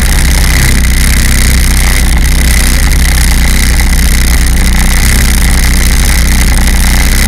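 Personal watercraft engine running steadily under way, loud, with heavy wind and rushing noise on the hull-mounted microphone.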